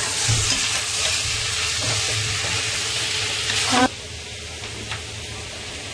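Chopped onions and capsicum sizzling in hot oil in a steel pan as they are lightly shallow-fried, with a few faint stirring clicks. The sizzle drops off sharply about four seconds in.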